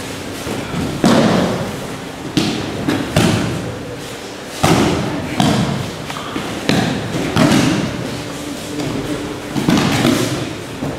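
Aikido breakfalls (ukemi) on tatami mats: bodies thudding onto the mat as partners are thrown, about eight irregular thuds over the span, one every second or so.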